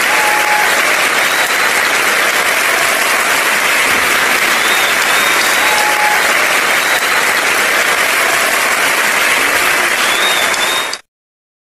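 A crowd clapping steadily in dense applause, which cuts off suddenly near the end.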